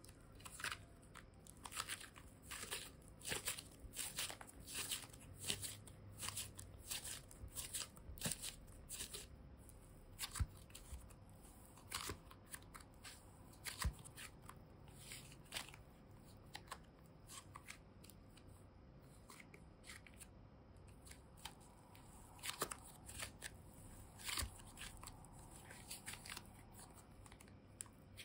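Fluffy slime squeezed and kneaded by hand, giving a rapid run of small crackling clicks and squishes. The clicks come thickest in the first half, thin out after the middle, and pick up again briefly near the end.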